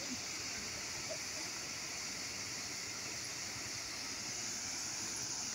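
Fast-flowing river rushing steadily, an even wash of water noise.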